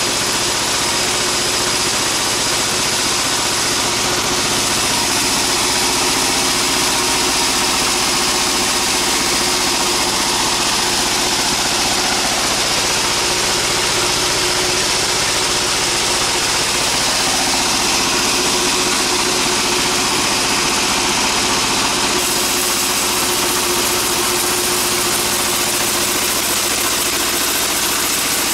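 Sawmill band saw machine running steadily: a continuous engine drone with a steady high whine over it, never pausing.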